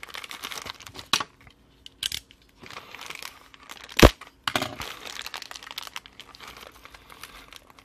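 Clear plastic parts bags crinkling as they are handled and pulled at, with a few sharp clicks and one loud knock about four seconds in.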